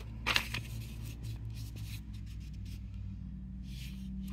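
Paper instruction booklet being handled: a sharp rustle of the pages about half a second in, a few light scratches of a finger sliding over the paper, and a softer rustle near the end, over a steady low hum.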